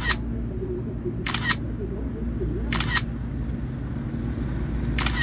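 Camera shutter sound from the DJI Fly app, a double click repeating about every second and a half as the DJI Mini 4 Pro takes the shots of a panorama. A steady low hum lies underneath.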